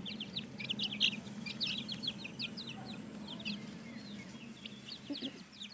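Kadaknath chickens chirping: a dense run of short, high-pitched peeps in quick succession that thins out after the first few seconds.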